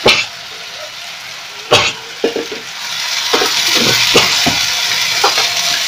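Spice masala frying in hot oil in a pan, with a spoon stirring and knocking sharply against the pan twice and then clinking lightly. About three seconds in, a loud sizzle rises and holds as water is poured into the hot masala.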